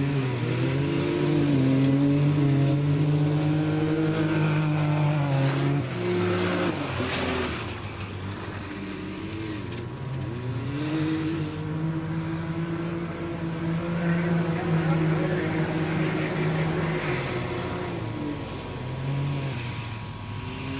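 UTV engines running hard under throttle, their pitch climbing, dipping and climbing again. About six seconds in, a short burst of harsher noise rises over them.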